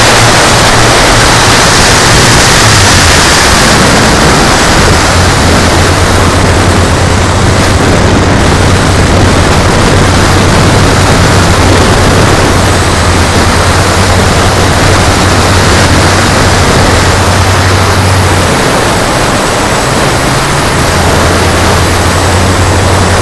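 Engines of a radio-controlled B-17G scale model droning steadily under a loud rushing noise. The drone shifts pitch about three seconds in, dips for a couple of seconds near the end, then comes back.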